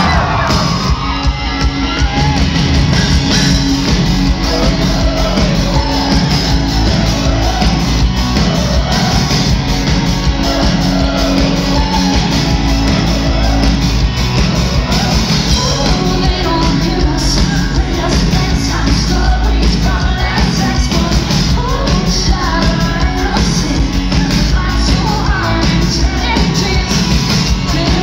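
Live rock band playing a song at full volume, with drums, electric guitars and a steady beat, and a female lead singer's voice over it, heard from the audience in a large hall.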